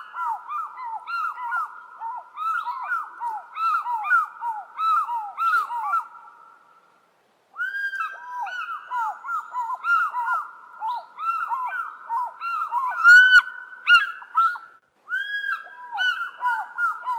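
African fish eagle calling: three bouts of quick, repeated ringing notes. Two series of notes at different pitches interleave, typical of a pair duetting. The first bout is already under way and fades out around 6 seconds in, the second starts about 7.5 seconds in, and the third starts about 15 seconds in.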